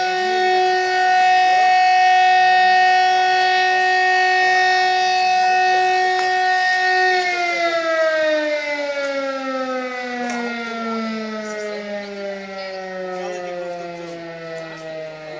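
Siren sounding one steady, loud tone, then winding down with slowly falling pitch for the second half.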